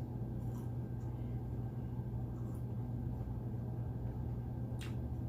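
Steady low background hum, with a few faint clicks, the clearest one near the end.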